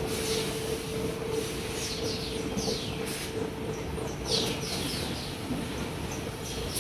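Machinery din on a refrigerator production floor: a steady, dense clatter with a low hum, overlaid by clusters of short, high, falling chirps.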